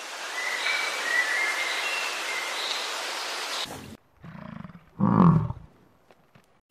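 A steady hiss with a few faint, short high chirps, then, after a cut about four seconds in, European bison grunting: a low grunt followed by a louder, longer one.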